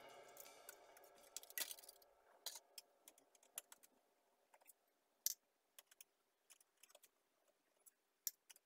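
Faint, scattered clicks and taps of a screwdriver and hands working at the metal and plastic frame of a partly stripped laser printer, with near-silent gaps between them; the sharpest click comes about five seconds in.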